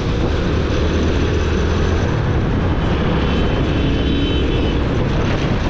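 Yamaha motorcycle riding at a steady pace: the engine runs evenly under a thick, steady rumble of wind and road noise.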